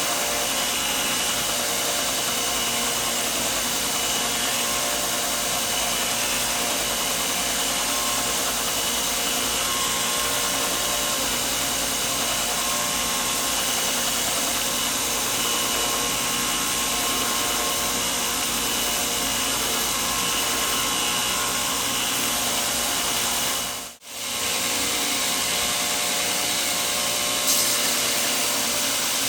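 Electric grinder running steadily while a knife blade is finished, dropping out briefly about four-fifths of the way through.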